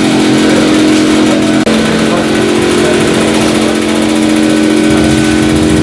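Loud, steady engine-like drone holding several fixed pitches, with a brief dropout about a second and a half in.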